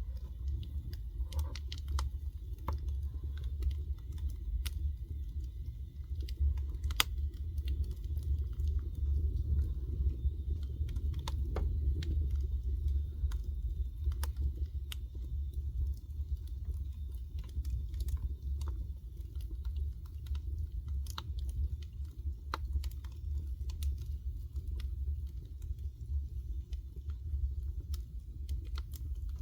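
Wood fire crackling, with irregular sharp pops and snaps over a low, steady rumble.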